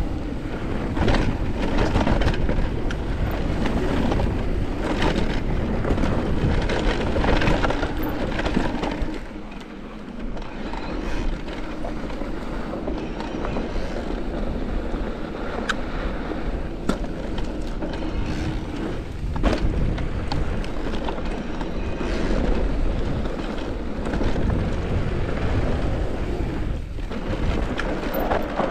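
Electric mountain bike riding fast down a dirt trail: a steady rush of tyre and wind noise, with frequent knocks and rattles from the bike over bumps. The noise drops briefly about ten seconds in.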